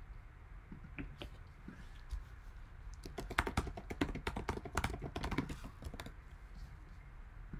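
Typing on a computer keyboard: a few single key clicks, then a quick run of keystrokes lasting about three seconds from about three seconds in.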